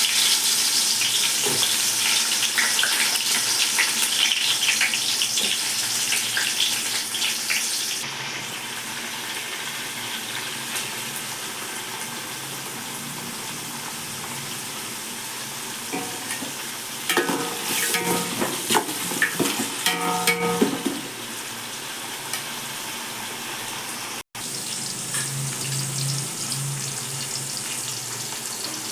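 Cooking oil sizzling in a pan as food fries and is stirred, loudest for the first several seconds and then settling to a steadier, lower sizzle. A run of louder knocks and scrapes of the utensil against the pan comes about two-thirds of the way through, and the sound cuts out for a split second soon after.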